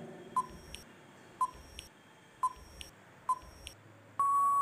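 Countdown timer sound effect: four short electronic beeps about a second apart, then a longer held beep near the end, marking time running out.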